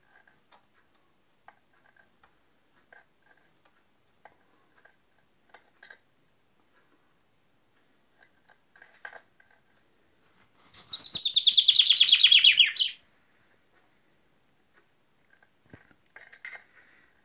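Common chaffinch singing one loud song of about two seconds, a fast run of notes falling in pitch, about eleven seconds in. Faint short notes and clicks are scattered through the rest.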